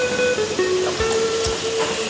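Background music: a melody of held notes that change pitch every half second or so, with occasional deep thumps.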